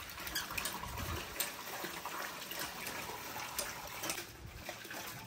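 Water from a hose running into cow dung in a round concrete mixing tank while the slurry is stirred, with uneven sloshing and splashing.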